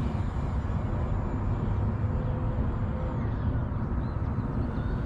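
Electric motor and propeller of an FMS 1500mm Cessna 182 RC model plane in flight, a faint whine that glides in pitch as the plane passes, over a steady low rumble.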